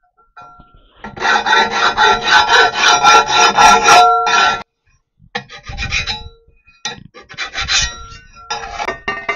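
Hand file rasping along the cropped edge of a 5 mm steel plate clamped in a bench vise, taking off the burrs. Quick, continuous strokes with a ringing tone from the plate run for about three and a half seconds, then a short pause, then shorter, more spaced-out strokes.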